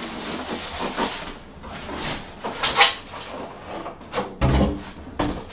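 Polystyrene foam packing scraping and rubbing as an end cap is pulled off a plastic-wrapped computer case, with a dull thump about four and a half seconds in.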